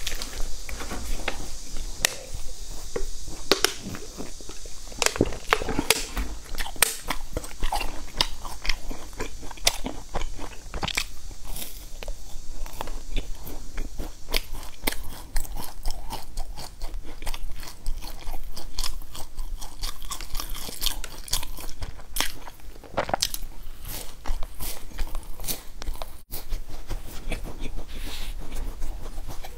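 Crisp biscuits and a crunchy cereal bar with raisins being bitten and chewed, with many irregular sharp crunches.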